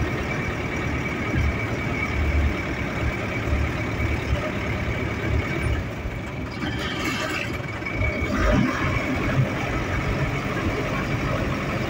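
Steady engine rumble and tyre noise of a bus driving at road speed, heard from inside the cab, with a brief hiss about seven seconds in.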